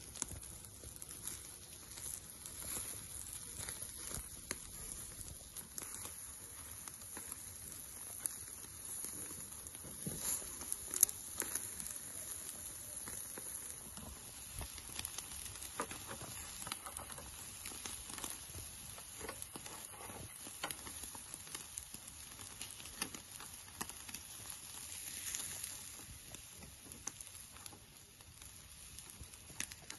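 Chicken kebab skewers sizzling over a bed of hot charcoal, with faint scattered crackles from the coals and dripping juices.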